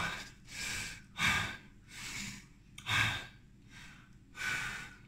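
A man breathing hard and in gasps, about six heavy breaths in and out in five seconds. He is out of breath from a long set of press-ups.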